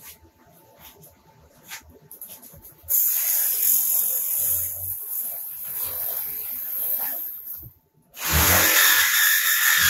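Milwaukee M18 Fuel Super Sawzall cordless reciprocating saw cutting overhead into the ceiling: a few quiet clicks, then the saw runs loud and steady from about three seconds in, stops briefly near eight seconds, and starts cutting again.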